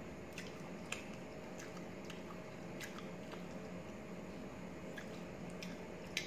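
Chewing and wet mouth smacks of someone eating rice with chicken liver curry by hand: scattered short sticky clicks, the loudest just before the end, over a steady faint hum.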